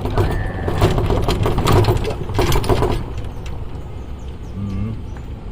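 Golf cart driving along a road: a low rumble with dense rattling and knocking from the cart over the first three seconds, steadier and quieter after that.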